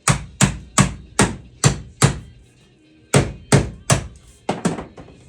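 Hammer blows on a metal patch plate being fitted into a Jeep floor, eleven sharp strikes with a short ring. Six come in a steady run at about two and a half a second, then after a short pause three more, and finally a quick pair.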